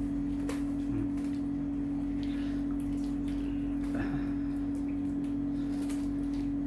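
Sun conures and other small parrots bathing in a shallow tray of water, with scattered light splashes and wing flutters, over a steady low hum.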